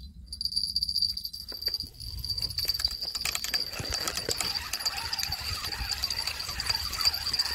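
A steady, high-pitched insect trill starts about a second in and keeps going without a break. Under it are wind rumble on the microphone and irregular scuffs and knocks from movement on the sandy shore.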